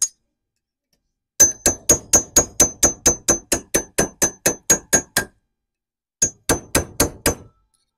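Hammer tapping a steel punch to drive the inner wheel bearing and seal out of a Land Cruiser 100 series / LX470 wheel hub. The light taps come about four a second, each with a short high metallic ring: a run of about sixteen, a one-second pause, then about five more.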